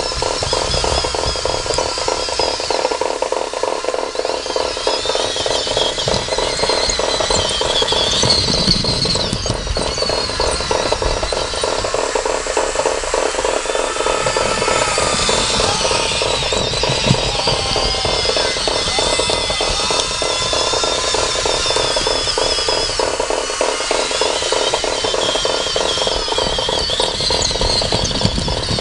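Radio-controlled scale construction machines running on dirt: a steady rapid mechanical rattle from their electric drives and gearing, with high whines that waver up and down as they drive and work.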